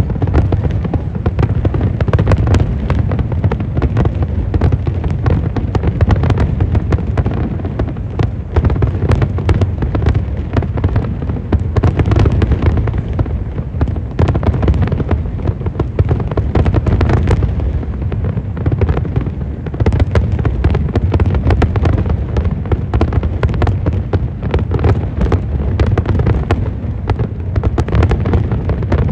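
Aerial fireworks display: many shells bursting in quick succession without a pause, over a continuous low rumble.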